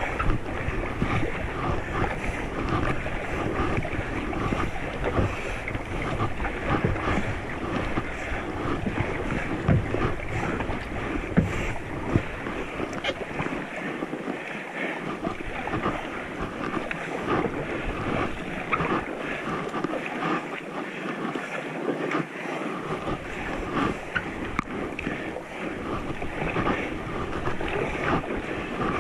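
River water rushing and splashing around a kayak on rough water, with irregular splashes throughout. Wind rumbles on the microphone and drops away twice for a few seconds.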